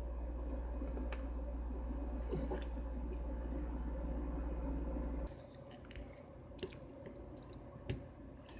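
A steady low hum that cuts off suddenly about five seconds in, followed by a few faint light clicks from small parts being handled.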